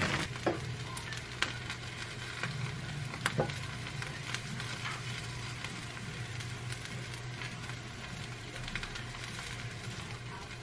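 Rice and toppings sizzling in a hot earthenware pot (ttukbaegi) over a gas burner: a steady sizzle with scattered sharp crackles, several in the first few seconds, over a steady low hum.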